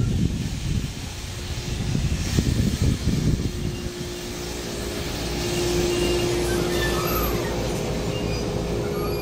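A JR East E127 series electric train running, with a rumble of wheels on track; a steady electric hum comes in about four seconds in.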